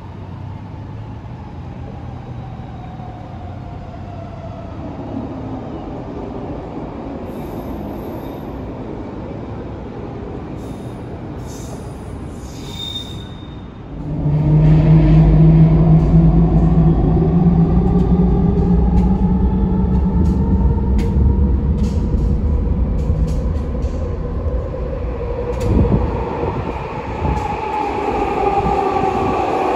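SkyTrain linear-induction-motor trains. For the first half a quieter train runs with a whine that falls in pitch. About halfway through it gives way to a much louder rumble and whine of a train coming through the tunnel into an underground station, the whine gliding up and down.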